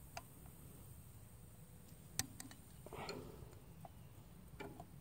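A few faint, scattered metallic clicks of a small open-end wrench being handled at a tractor's diesel fuel filter housing.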